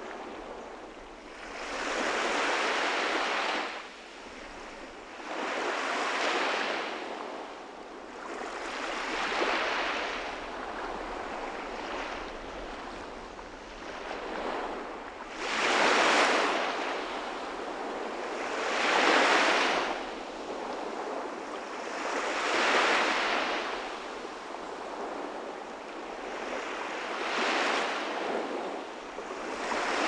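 Small sea waves breaking and washing up a sandy beach, each a rising and falling hiss of surf, coming every three to four seconds; the loudest come around the middle.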